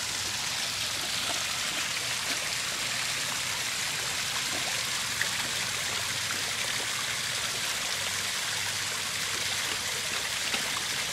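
Small rock waterfall spilling steadily into a backyard pond: an even, continuous rush and splash of falling water.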